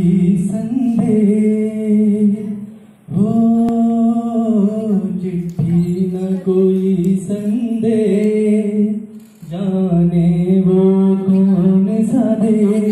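A man singing solo and unaccompanied into a microphone, in long held, gliding phrases, with short breaths about three and nine and a half seconds in.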